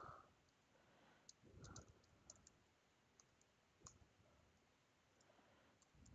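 Faint computer keyboard typing: a few scattered, irregular key clicks against near silence.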